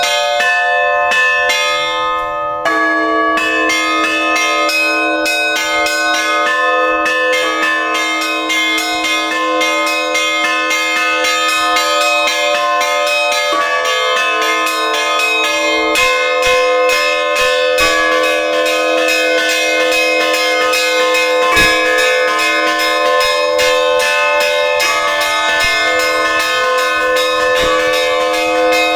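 Russian Orthodox church bells in a festive peal: small bells struck in a fast, busy rhythm over the continuous ringing of deeper bells. A lower bell tone comes in strongly about three seconds in and keeps sounding.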